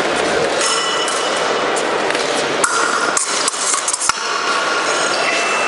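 Épée blades clinking together in a few sharp metallic clicks about three to four seconds into the exchange. Near the end a steady high tone starts: the scoring machine's signal that a touch has registered.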